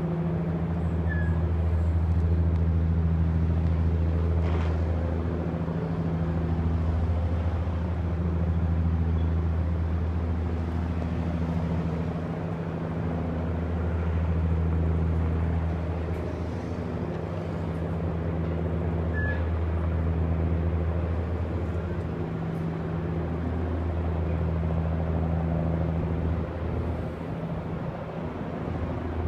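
Steady low mechanical drone, as of a large engine or machinery, swelling and easing every several seconds.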